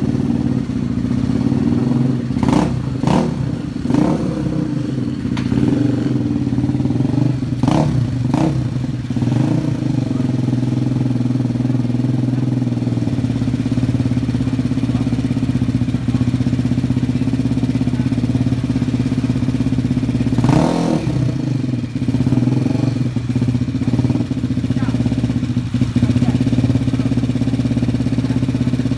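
Yamaha Mio scooter with a built-up 215cc four-valve DOHC engine idling steadily. A few short, sharper sounds break over it about three, eight and twenty seconds in.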